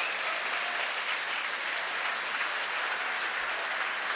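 Crowd applauding steadily, greeting a confirmed Falcon 9 stage separation.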